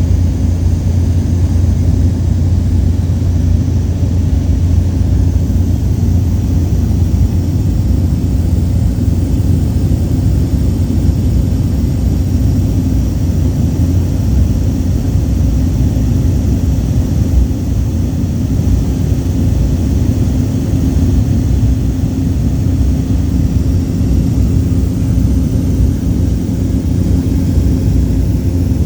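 Steady, loud drone of a Cessna's engine and propeller in cruise, heard from inside the cabin, with a deep hum and a steady tone above it.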